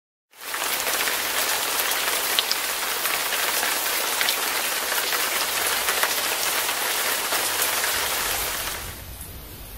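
Steady hiss of water, rain or rushing creek water in a forest, with many fine ticks through it. It fades in about half a second in and dies down near the end.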